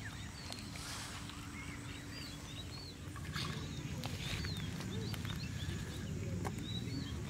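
Small birds chirping over and over, short high chirps, above a low steady rumble that gets louder about halfway through, with a few faint rustles.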